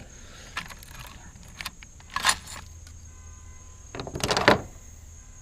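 Small metal parts clinking and rattling as they are handled and sorted in a bin, with scattered light clicks, a brief rattle about two seconds in and a louder rattle near the end.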